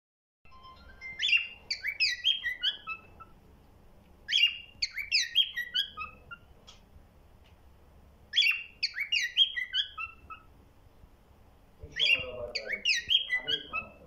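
Lutino cockatiel singing: four phrases of quick whistled notes with short pauses between, each note sliding down and each phrase falling in pitch.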